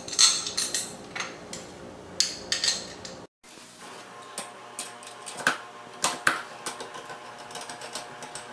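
Metal lock parts clinking and clicking as the interior half of a Schlage keypad lever lock is fitted onto the door, a string of scattered sharp ticks. The sound cuts off for a moment a little over three seconds in, then the clicking resumes.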